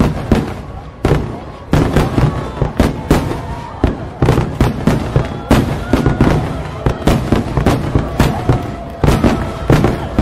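Aerial firework shells bursting in quick succession, a sharp bang about every half second, each trailing off before the next.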